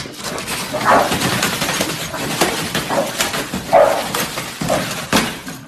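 Dogs barking excitedly at a door's letterbox as mail comes through, six or so short barks about a second apart over steady scrabbling and paper rustling.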